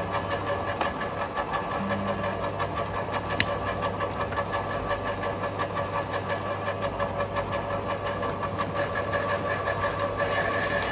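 Topshak WS1 electric garden shredder running with nothing fed in yet: a steady motor hum with a whine over it. There is one sharp tick about three and a half seconds in, and the whine grows a little louder near the end.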